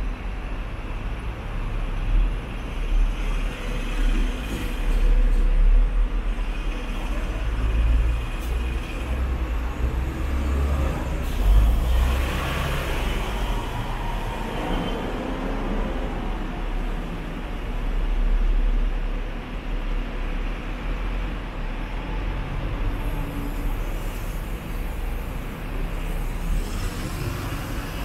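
Riding aboard a Hong Kong double-decker tram: the tram's steady low rumble as it moves, with street traffic around it and a louder rush of noise about twelve seconds in.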